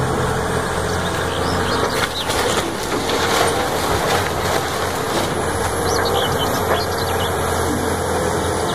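Diesel engine of a Caterpillar tracked hydraulic excavator running steadily under load, with cracking and crashing of splintering wooden boards and debris as it demolishes a wood-framed house.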